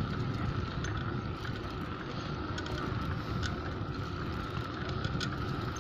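Wind rumbling on the microphone while moving along a street, with a steady high hum underneath and a few faint clicks.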